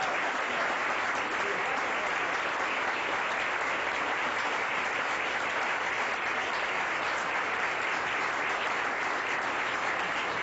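An audience applauding steadily, a dense continuous clapping.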